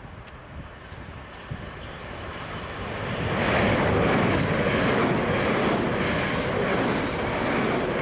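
Passenger train approaching and passing through the station at speed on the near track: a rising rumble that becomes a loud, steady rush of wheels and air about three seconds in, with wind buffeting the microphone.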